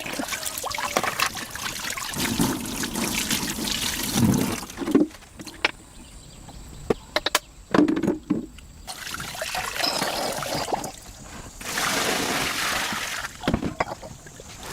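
Water running and splashing as hands and feet are washed, coming in several spells with a few sharp knocks between them.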